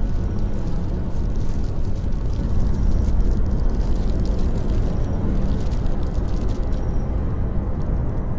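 A steady low rumble with a faint hiss above it, swelling slightly about three seconds in.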